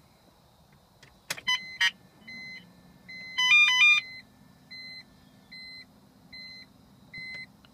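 Valentine One radar detector powering up: a click, then electronic start-up tones, a quick stepping chirp sequence that is the loudest part, and a run of short even beeps a little under a second apart. A faint steady electrical hum runs under the beeps.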